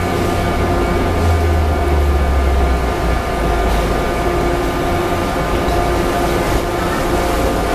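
Shinano Railway 115-series electric train rolling slowly into a station platform: a steady low rumble with a continuous hum, and a few faint knocks.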